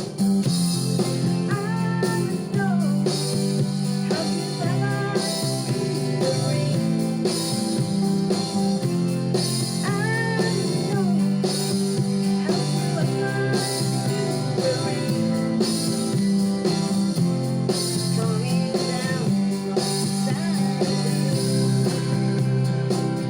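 Rock song with strummed guitar backing and a voice singing the melody over it.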